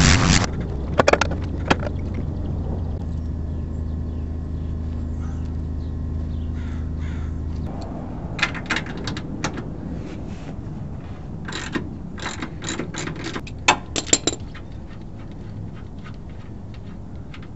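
Scattered metal clicks and clinks of hand tools and bolt hardware as a shock absorber is fitted to a motorhome's front suspension, bunched in quick clusters in the second half. A low steady hum runs under the first half and stops abruptly.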